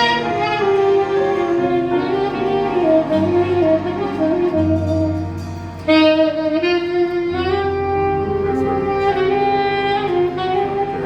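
Saxophone playing a smooth, sustained melody with slides between notes, over a backing with held bass notes.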